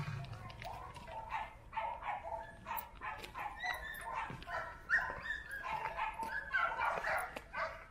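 A pack of Australian Shepherds whining and yipping in many short pitched calls, with a few barks, as they crowd around and sniff a newly introduced dog. The calls grow loudest about five and seven seconds in.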